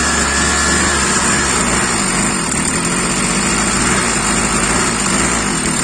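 Nakashi brush cutter's small two-stroke engine running steadily on its own, its carburettor still out of adjustment.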